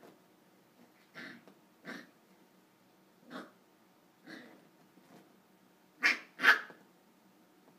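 Corgi puppy barking in short, separate yaps, about seven in all, the last two close together and loudest.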